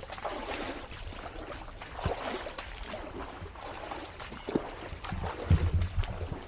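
An elephant walking through a waterlogged, muddy track, its feet squelching and splashing in the wet mud, with a few low thumps about five and a half seconds in.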